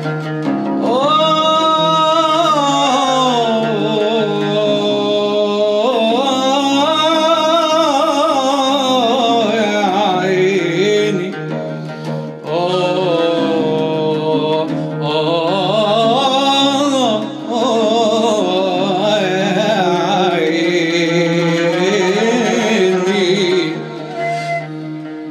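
Male voice singing long, ornamented Arabic nasheed phrases over a steady low drone, with a short break about halfway through; the melody ends near the end, leaving the drone.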